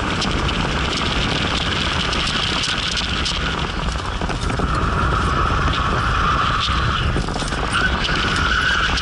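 BMW 325 heard from inside the cabin while being driven hard for drifting: the engine running under load with loud road noise and rattles, and a higher-pitched noise joining about halfway through.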